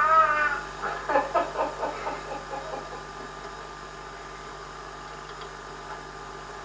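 A toddler's short, high-pitched squeal, followed by about two seconds of babbling voice sounds; after that only a steady background hum is left.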